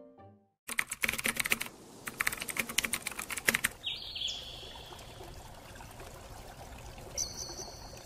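Typewriter keystroke sound effect: two quick runs of clicking keys, then a brief ringing tone about four seconds in and another short high tone near the end.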